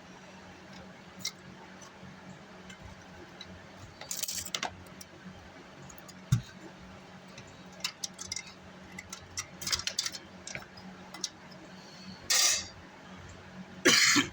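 Small metal parts and screws being handled while a car amplifier is taken apart: scattered clicks and clinks with short scraping rustles, a few louder scrapes near the end.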